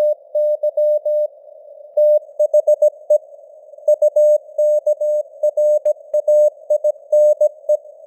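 Morse code sent as a single steady tone keyed on and off in short dots and longer dashes at about 17 words per minute, like a CW radio signal, over a faint band of simulated radio hiss around the tone.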